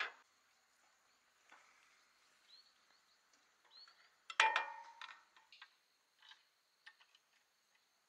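Light metallic taps and clicks of tools and engine parts being handled, with one louder metal clink about four and a half seconds in that rings briefly.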